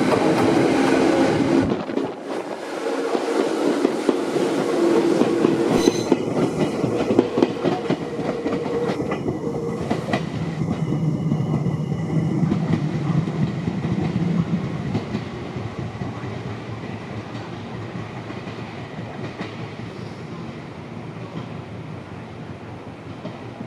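Toyohashi Railway 1800 series electric train pulling out, its wheels clacking over the rail joints with a steady motor hum. The sound fades gradually over the second half as the train moves away.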